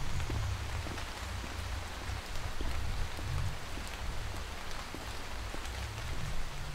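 Steady rain, with many single drops ticking, on a large umbrella, over a low rumble.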